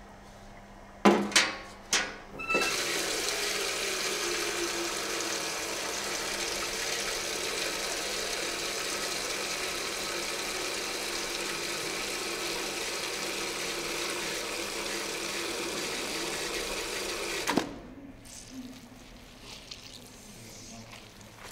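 A metal bucket knocks against a ceramic sink a few times, then water from the tap runs into the bucket in a steady rush for about fifteen seconds, filling it, and stops abruptly.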